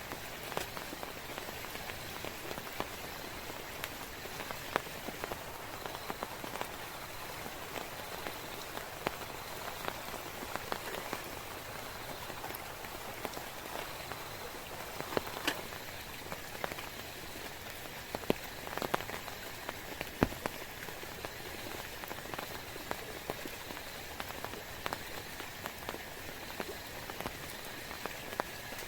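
Heavy rain falling steadily, with many scattered sharp taps of drops striking close by; one of the loudest comes about two-thirds of the way through.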